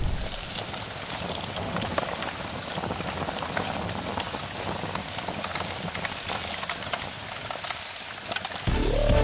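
Crackling and fizzing of flames dying down after an explosion sound effect, a steady hiss dotted with many small pops. Near the end a low rumble and a rising electronic tone begin.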